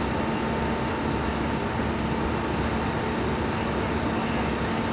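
A steady engine drone with a constant hum, holding one level without change.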